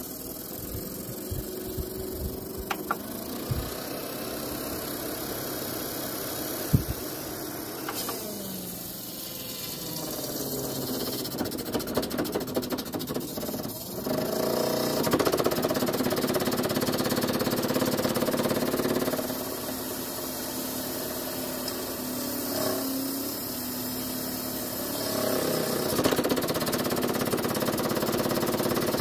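Sharper Image PORTAL window fan running with a steady motor hum, its level stepping up and down several times as the speed setting is changed. There are a few clicks in the first seconds, a drop in pitch about 8 seconds in, a louder stretch from about 14 seconds, a softer one near 19 seconds, and a louder one again near 25 seconds.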